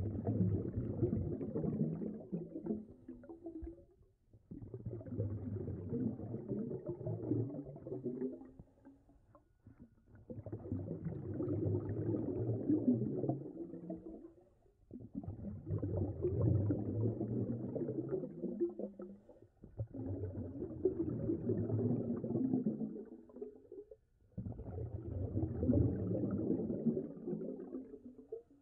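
A scuba diver's exhaled air bubbling out of the regulator exhaust, heard underwater as a rumbling gurgle. Six long exhalations, one every four to five seconds, with short quiet pauses between them while the diver breathes in.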